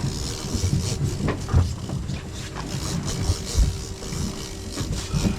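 Fishing boat's engine running with a steady hum, with a few irregular low thumps over it.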